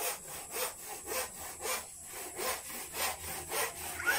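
Hand saw cutting through wood in steady back-and-forth strokes, about two a second.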